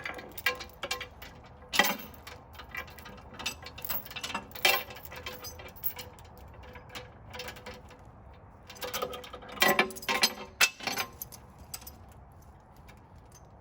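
Steel log chain clinking and rattling as it is handled and hooked around a log, in scattered clinks and knocks with a cluster of louder clanks past the middle.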